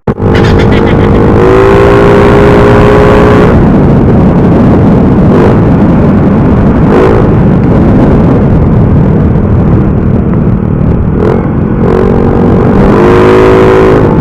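A motorcycle with a loud aftermarket 'chicken pipe' open exhaust running at speed, heard from the bike over a steady rushing noise. Its engine note stands out clearly during the first few seconds and again near the end.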